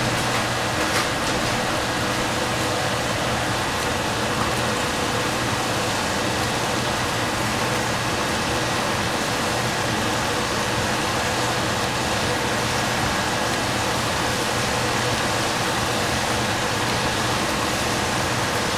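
Bok choy and bean thread cooking in a pan on the stove: a steady, even sizzle with a faint steady hum beneath it.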